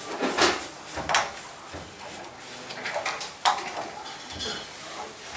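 Screwdriver tightening the stainless band clamp of a rubber flexible coupling on PVC pipe: a few sharp metallic clicks and knocks with scraping in between.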